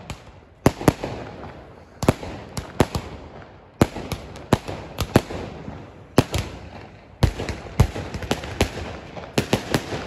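Fireworks and firecrackers going off: a string of sharp bangs at irregular intervals, with crackling in between.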